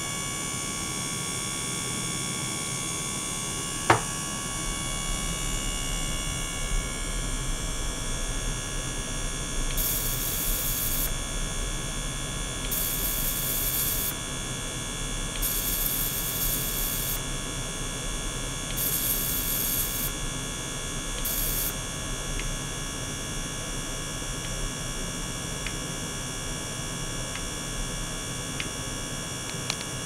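Steady electrical hum with many steady tones from the small liquid-circulating pump and ultrasonic equipment running. One sharp click comes about four seconds in, and five short bursts of high hiss come between about ten and twenty-two seconds in.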